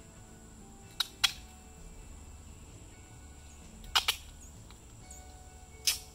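Duct tape being pulled off the roll and wrapped around a pool ladder leg: short, sharp rips, two about a second in, two more about four seconds in, and one near the end.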